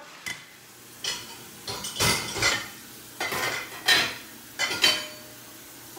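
A series of short clinks and clacks of hard objects being handled and set down, about half a dozen in all, separate and irregular.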